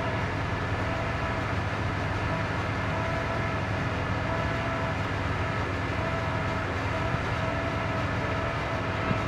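Steady background noise inside a parked car: an even low rumble with hiss and a faint steady hum, no music yet playing.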